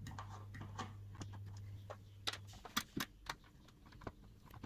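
Scattered light clicks and taps of metal parts as the CPU cooler's large mounting screws are started by hand on the pump block, with a few sharper clicks two to three and a half seconds in. A low steady hum underneath cuts out about halfway through.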